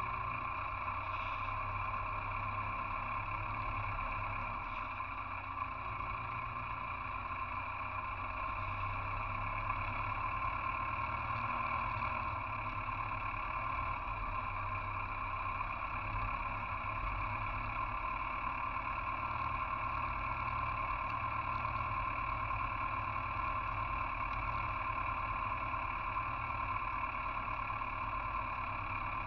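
Farm tractor engine running steadily under way as the tractor drives along, heard from the driver's seat just behind the bonnet.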